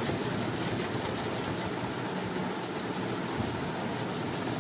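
Soaked palmyra palm seed rubbed by hand against a woven bamboo basket: a steady scraping as the fruit pulp is worked out through the weave.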